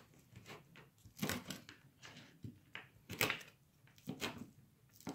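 Chef's knife cutting through fried tofu and knocking on a wooden cutting board: about six or seven irregular cuts.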